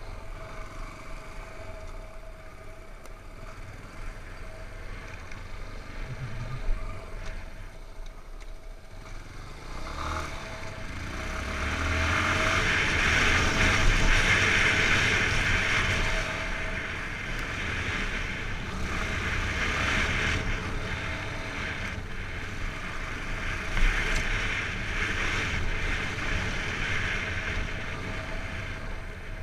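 Yamaha XTZ 250 Lander's single-cylinder engine running while riding, with wind and road noise on the camera microphone; the noise swells about a third of the way in, peaks near the middle, then eases off a little.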